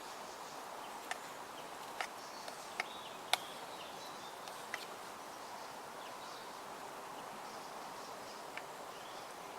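A steady outdoor background hiss with about six sharp, irregular clicks, the loudest a little over three seconds in.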